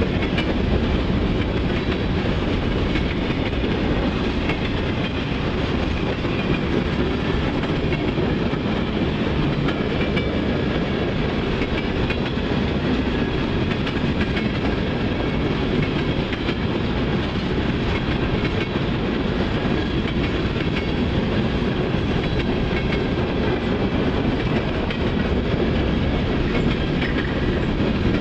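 CSX mixed freight train's cars (covered hoppers, centerbeam flatcars, boxcars) rolling past at steady speed: a continuous low rumble of steel wheels on rail with faint repeated clicks.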